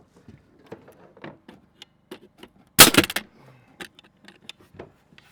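Scaffolding being shifted: scattered light knocks and clicks, with a loud clattering rattle of several quick strikes about three seconds in.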